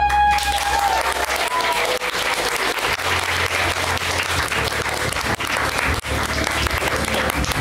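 Audience applauding steadily, with one voice giving a rising whoop right at the start.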